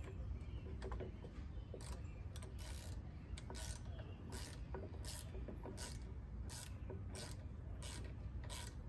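A screw being turned by hand into a plastic wall anchor through a wall-mounted bracket, each turn giving a short scraping rasp, about one every 0.7 seconds.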